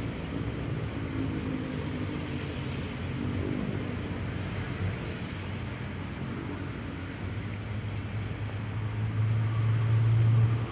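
Steady low rumble of distant traffic, with a low engine drone that grows louder over the last few seconds.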